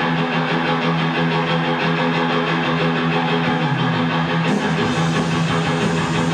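Rock music led by an electric guitar holding sustained chords, with a slight change of notes a little past halfway.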